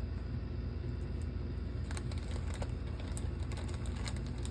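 A small plastic bag of board-game follower pieces crinkling and the pieces clicking against each other as the bag is handled and opened, a few brief crackles and clicks over a steady low hum.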